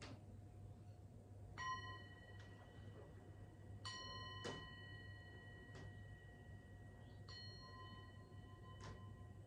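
Small handheld singing bowl struck three times, each strike ringing on for several seconds with a few clear high overtones, with faint knocks in between.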